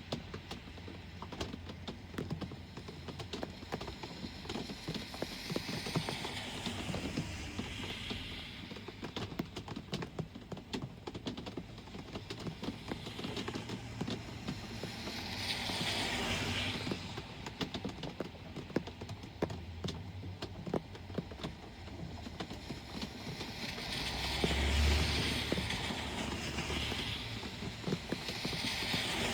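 Rain pattering with many small drips, as vehicles pass on a wet road: the hiss of tyres on water swells and fades three times, the last pass with a low engine rumble.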